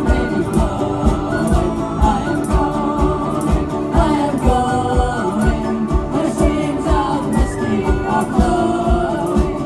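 Live Celtic punk band playing with a steady beat: electric and acoustic guitars, banjo, accordion, tin whistle and tambourine, with several voices singing together.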